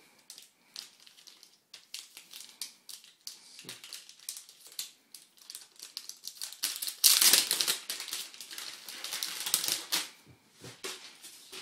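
Packaging being handled while an Apple wireless keyboard is unpacked: a run of light clicks and crinkles, with a louder stretch of rustling from about seven to ten seconds in.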